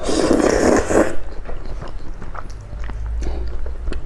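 A person eating spicy instant noodles close to the microphone: a loud rush of noise over the first second, then small wet chewing clicks.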